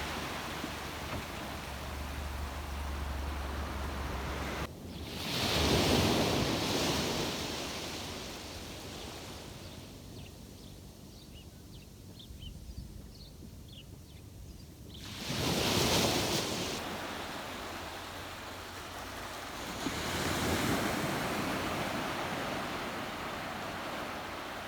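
Waves breaking and washing on a shore, with wind: a steady wash of surf that swells up and dies away three times.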